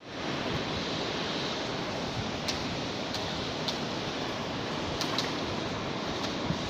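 Steady rush of flowing floodwater, an even noise with a few faint sharp ticks scattered through it.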